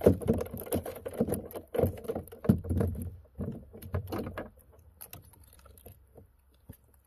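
Irregular clicks, knocks and rustles of gear being handled in a fishing kayak, dense at first and thinning out after about five seconds.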